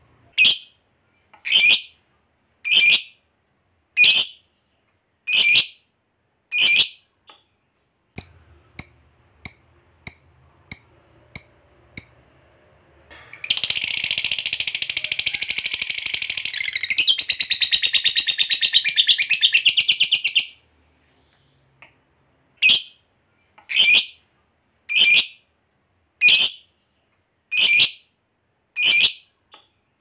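Lovebird calling: high-pitched calls about a second apart, then a quicker run of shorter calls. About thirteen seconds in comes a long unbroken chattering trill lasting some seven seconds, the long 'ngekek' prized in singing lovebirds. Spaced calls follow again near the end.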